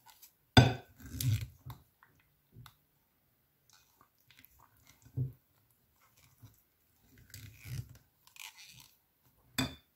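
Fluffy slime full of foam beads squishing and crunching as a wooden spatula stirs and folds it in a glass dish, in uneven spells with quiet between; the loudest comes about half a second in and another sharp one near the end.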